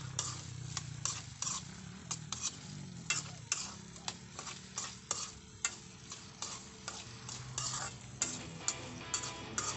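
Metal spoon scraping and clinking against an aluminium wok as diced potatoes and onion are stir-fried in oil, with a light sizzle underneath. The clinks come irregularly, about two or three a second.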